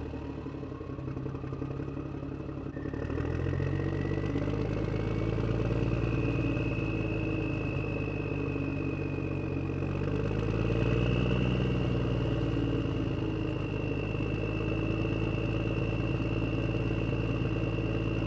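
Concrete pump truck running hard as it pumps concrete, a steady engine drone with a high whine that rises over the first few seconds and then holds steady. The engine swells about three seconds in.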